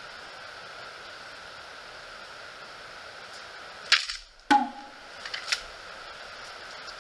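A sword quick-draw gone wrong: two sharp clacks about half a second apart, the second with a brief ring, then a few lighter knocks as the sword slips out of the hand and lands on the leaf-covered ground, over a steady background hiss.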